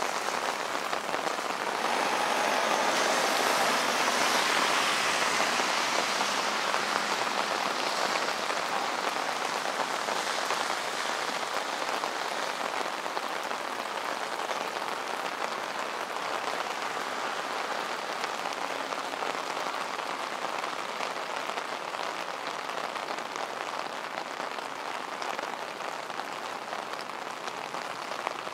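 Steady rain falling and pattering on wet city streets, swelling a little for a few seconds near the start before settling back.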